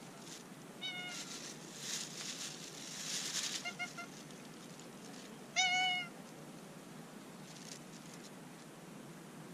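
Domestic cat meowing: a short meow about a second in, two small chirp-like mews near four seconds, and a louder, longer meow near six seconds.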